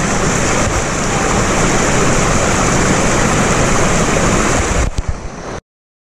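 Shallow stream rushing over rocks close to the microphone, a loud steady wash of water. It cuts off suddenly near the end, leaving silence.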